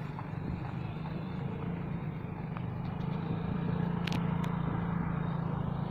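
A vehicle engine running with a steady low hum under outdoor background noise, with two sharp clicks about four seconds in.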